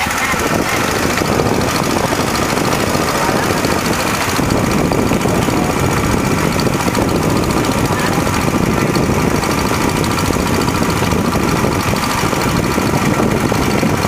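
A boat's motor running steadily, heard from on board.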